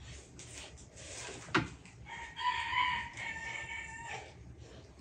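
A rooster crowing once, a steady call of about two seconds starting a little past the two-second mark. It is preceded by a single sharp click, the loudest moment, about a second and a half in, with soft taps of hands on dough throughout.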